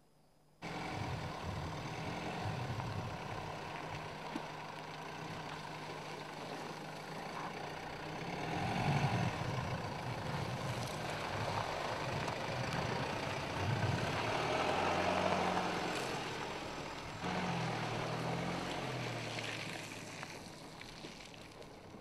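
Mercedes-Benz GLK 250 BlueTEC's four-cylinder diesel engine working the SUV slowly over rough dirt off-road, its revs rising and falling several times. The sound starts suddenly about half a second in.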